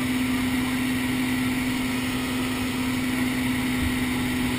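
Light propeller airplane's piston engine running steadily in flight, heard from inside the cabin as an even drone with one held low tone.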